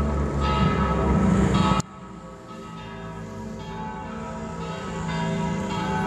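Peal of parish church bells, cast by Oberascher in 1948 and tuned c'–e'–g'–a', ringing together. The ringing drops suddenly in loudness with a click nearly two seconds in, then swells back up toward the end.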